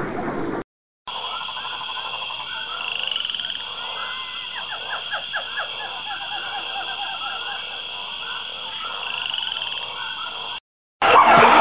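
A chorus of frogs croaking, with many short repeated calls over a steady high-pitched trill. It cuts in after a brief silence and stops near the end, where a louder, different sound begins.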